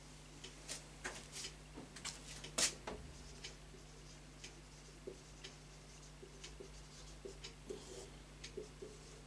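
Faint whiteboard sounds: a cloth rubbing the board at first, then a marker writing in short strokes and taps. A steady low electrical hum runs underneath.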